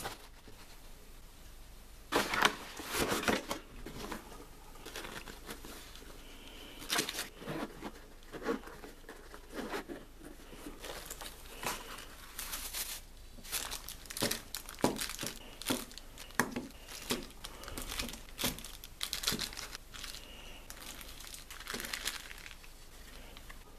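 Small plastic accessory bags and cardboard packaging crinkling and rustling as they are handled, in irregular crackles with louder clusters here and there.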